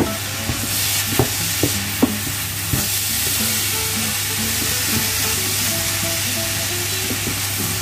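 Coconut filling of coconut flakes in coconut milk, butter and brown sugar sizzling and bubbling in a pan as it is stirred. A few sharp clicks of the utensil against the pan come in the first three seconds.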